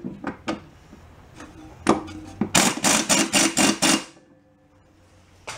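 Sharp knocks and clatter from workshop tools or parts being handled: a few scattered knocks, then a quick run of about six strikes a couple of seconds in, stopping about four seconds in.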